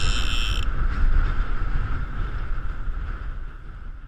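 Strong wind buffeting the camera microphone, a heavy low rumble that eases off toward the end. A short high steady tone sounds at the very start.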